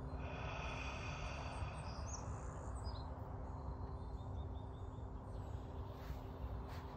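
Outdoor background noise: a steady low rumble with a faint steady hum, and a few short bird chirps about two to three seconds in.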